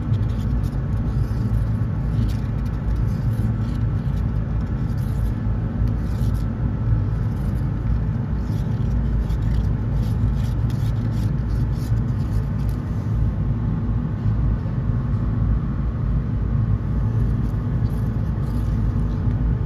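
A vehicle engine running steadily: a constant low rumble with a hum in it and no change in level.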